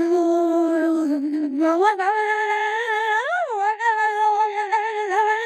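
A 15.ai synthesized Rarity voice stretching out the 'god' of 'Oh my god' into one long held, wavering vowel. It steps up in pitch about two seconds in and swoops up and down briefly past the middle, the text-to-speech voice having considerable difficulty sustaining the yell.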